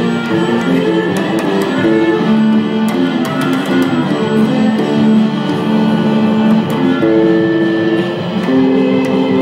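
Electric bass plucked with the fingers, playing a quick moving line of single notes along with a full instrumental rock track led by electric guitar.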